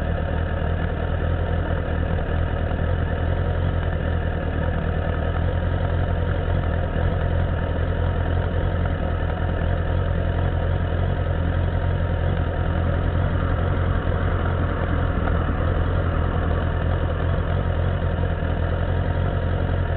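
Motorcycle engine idling steadily while the bike stands still, picked up by a camera fixed to the frame close to the engine block, so the engine is loud and close.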